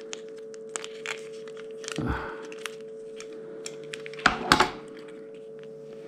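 Plastic resin-seal pouch being worked open by hand and with a knife blade: faint crinkling and small ticks, with two louder rustles about two seconds and four and a half seconds in. The pouch is stubborn and won't open easily. A faint steady hum runs underneath.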